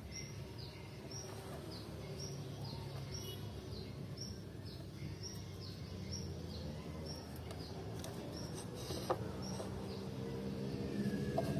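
A small bird repeating a short, high, downward-sliding chirp about twice a second, over a low steady background hum.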